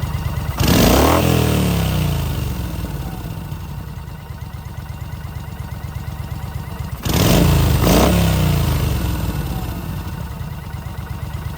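Yamaha XV950 Bolt's air-cooled V-twin idling with a steady pulse, blipped up sharply about half a second in and again about seven seconds in (a double blip the second time), revs sinking slowly back to idle each time. The bike has an intake manifold air leak, the cause of the abnormal noise being checked.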